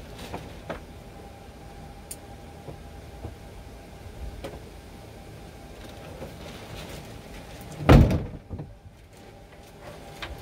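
Steady mechanical hum from the telescope rig, with scattered light clicks and one loud thump about eight seconds in.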